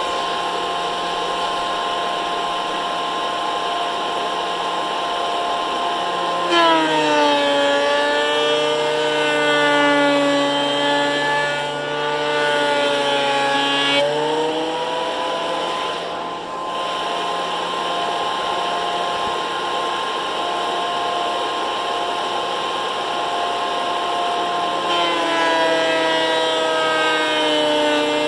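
Harbor Freight benchtop thickness planer running with a steady high whine. About six and a half seconds in, the pitch drops as an oak board feeds through the cutterhead and the motor takes the load. The pitch comes back up around fourteen seconds as the board clears, then drops again near the end as the next board enters.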